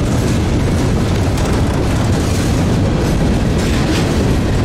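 Mixed manifest freight train on the move: a loud, steady rumble of wheels on rail, with a few faint clicks.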